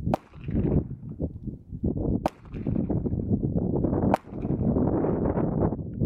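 Three pistol shots from a Sig Sauer P220 in .45 ACP, about two seconds apart, sharp and thin as heard from beside the target. They come over heavy wind noise buffeting the microphone.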